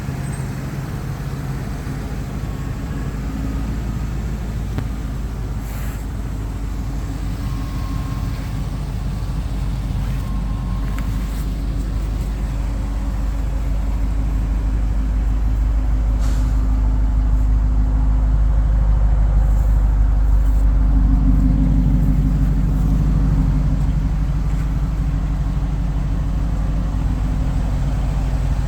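Jaguar XKR's supercharged V8 running, a steady low drone that grows louder about halfway through, peaks, then eases off slightly, with a few faint clicks.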